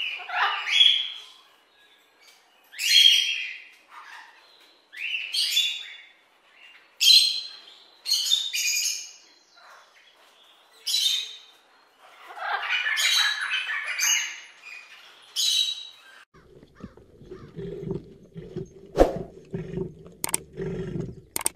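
Rainbow lorikeet calling: about nine harsh, high-pitched screeching calls at irregular intervals over the first sixteen seconds. Then a low rumble with a couple of clicks near the end.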